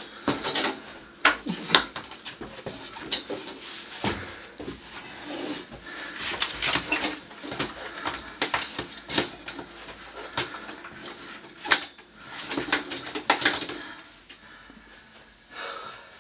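Folding ironing board with a metal frame being unfolded and set up: repeated clanks, rattles and scrapes of its legs and frame, coming in clusters.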